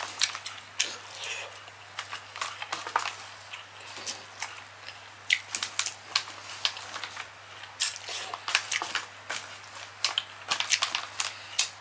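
Close-up eating sounds: chewing and wet mouth smacks with many short sharp clicks, as fingers pick through a foil tray of Cajun seafood. A faint low hum runs underneath.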